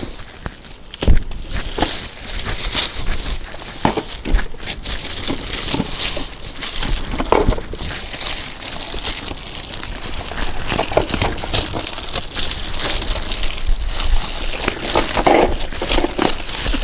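Plastic wrapping being pulled off and crumpled from a mobility scooter seat: a long run of irregular crinkling and crackling, with a sharp thump about a second in.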